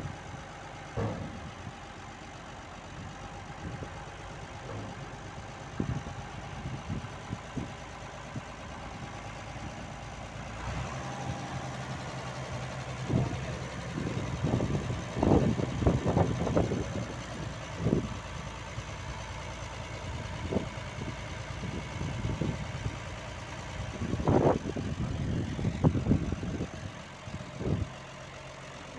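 John Deere 3135 tractor's diesel engine idling steadily, with irregular thumps that bunch up about halfway through and again near the end.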